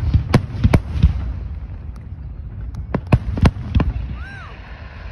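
Aerial firework shells bursting: a cluster of sharp bangs in the first second, another cluster about three seconds in, over a steady low rumble.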